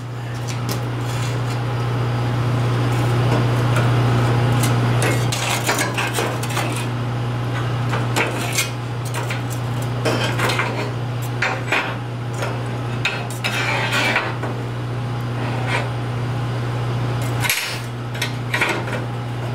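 Metal clinking and scraping as a freshly plasma-cut part of quarter-inch steel plate is gripped with locking pliers and worked loose from the plate and the cutting table's slats, with irregular sharp clinks. Under it runs a steady low hum that drops out briefly near the end.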